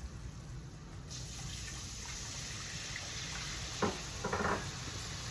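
Water running steadily from a kitchen tap, turned on about a second in, with a brief knock near the end.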